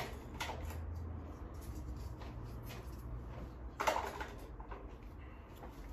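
Small handling noises over a low steady hum, with one sharp click about four seconds in.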